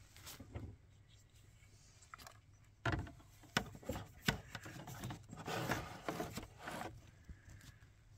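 Handling noise: a cluster of irregular knocks, taps and rubbing from about three seconds in, lasting about four seconds.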